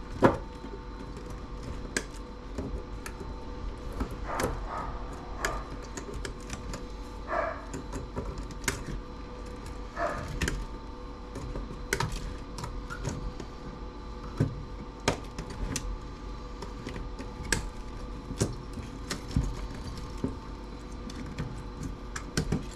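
Irregular clicks and taps of hand tools and small metal and plastic parts being worked on during the teardown of a small CRT TV, over a faint steady hum.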